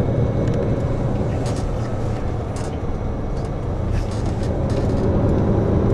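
Tour coach driving along, heard from inside the cabin: a steady engine drone and road noise, with a few faint clicks.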